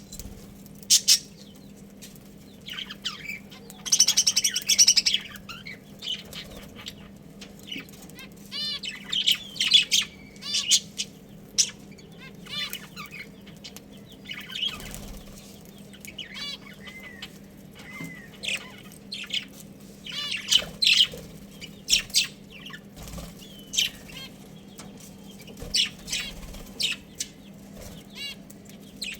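Budgerigars chirping and chattering in many short, high calls scattered throughout, with a brief noisy flurry about four seconds in, over a steady low hum.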